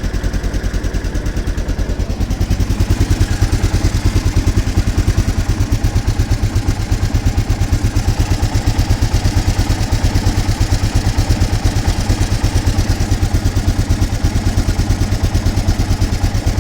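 Suzuki DR 800's big single-cylinder engine running steadily with an even pulsing beat and a strange mechanical noise from inside the engine. The owner cannot identify the noise: it is louder when the engine is cold, and the balancer shaft chains have already been tightened to the manual's specification.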